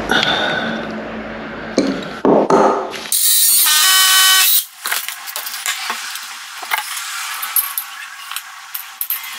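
A cordless drill runs into the wall for about a second and a half near the middle, with a steady motor whine, after some knocks. Light metallic clicks and clinks of a steel radiator bracket and screws being handled follow.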